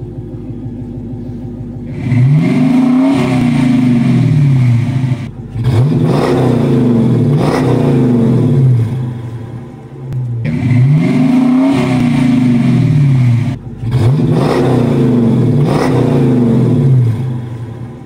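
Dodge Challenger's 5.7 Hemi V8 idling through a pair of Flowmaster Super 44 mufflers, rear resonators removed, then free-revved four times while standing still. Each rev climbs and falls back, and the engine drops toward idle between them.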